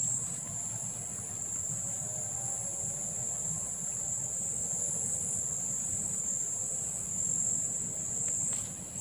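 Insects chirring in a steady, continuous high-pitched drone, with a low rumble underneath.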